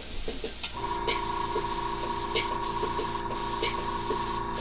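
Airbrush hissing as it sprays, with a few brief breaks in the hiss. A steady hum with two pitches comes in about a second in and keeps going.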